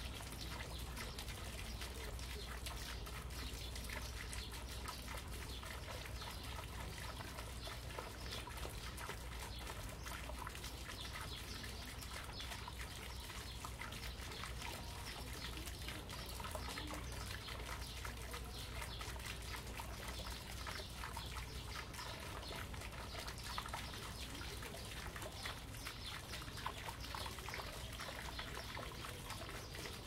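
Small fountain flowing gently into a little pond: a steady, even trickle and splash of water.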